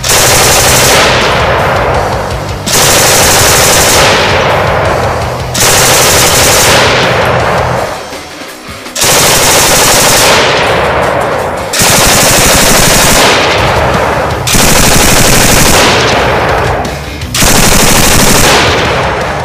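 PK-series 7.62×54mmR belt-fed general-purpose machine gun firing long bursts of automatic fire, seven bursts back to back, each about two to three seconds long and starting abruptly.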